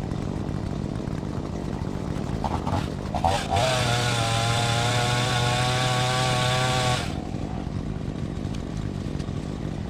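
Chainsaw engine idling, then revved to full throttle for about three and a half seconds, holding a steady high note, before dropping back to idle.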